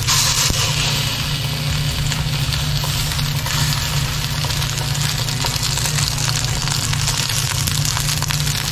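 Chicken pieces sizzling steadily as they pan-fry in a nonstick frying pan, over a steady low hum.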